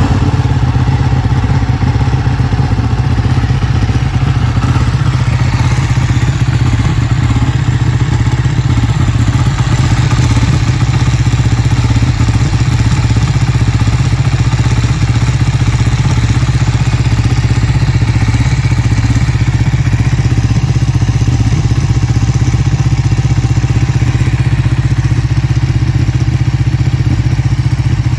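Ducati Panigale 1299S's 1285 cc Superquadro L-twin idling steadily just after a cold start, breathing through a full-system Akrapovič exhaust. The STM dry slipper clutch adds a rattle as it spins in its open cover.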